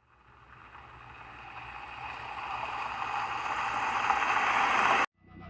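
A rushing noise swell that grows steadily louder for about five seconds and cuts off suddenly, then a second swell starts building: the intro build-up of a heavy rock soundtrack.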